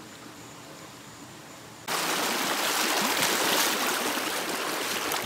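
Forest stream running, a loud steady rush of water that cuts in suddenly about two seconds in. Before it there is faint night-forest ambience with a thin, steady, high insect tone.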